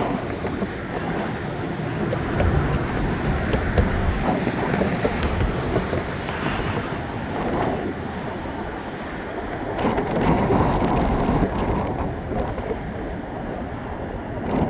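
Semi trucks passing at close range: a loud rush of tyre and air noise with wind buffeting the microphone. It swells twice, a few seconds in and again about ten seconds in.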